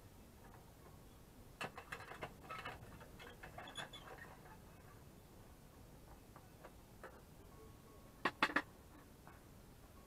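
Light clicks and taps from a small wood stove's air damper and door handle being worked by a gloved hand, then three sharp clicks in quick succession near the end as the door handle is set.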